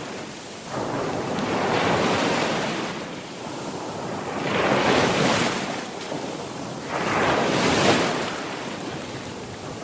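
Sea waves breaking and washing on a shore, swelling and falling away in surges every few seconds.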